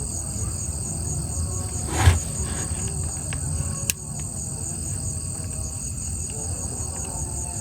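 Insects chirping in a steady, shrill chorus that pulses about four or five times a second, over a low rumble. A single thump about two seconds in and a sharp click a couple of seconds later.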